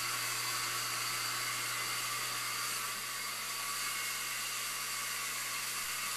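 A running electrical appliance: a steady airy hiss over a low, even hum, dipping slightly in level about three seconds in.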